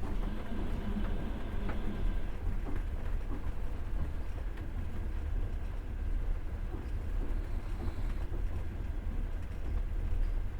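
Passenger train rolling along the track, heard from inside the carriage: a steady low rumble of the wheels with a few faint knocks of the wheels over rail joints, and a higher drone in the first couple of seconds that then fades.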